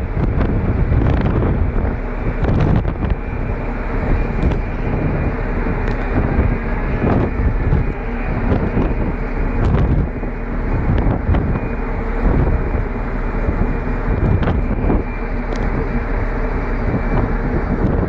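Wind buffeting the microphone on the deck of a cargo ship running at speed, over the rush of water along its hull and a steady hum.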